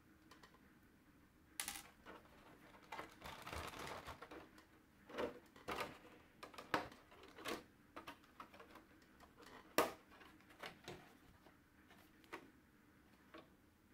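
Irregular hard plastic clicks and taps, with a short rustle about three to four seconds in: a radio-controlled stadium truck's plastic body and parts being handled by hand.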